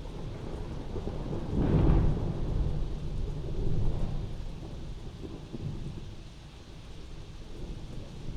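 A thunderclap in a rainstorm: a low rumble builds, cracks loudest about two seconds in, swells again near four seconds, then rolls away slowly, over steady rain.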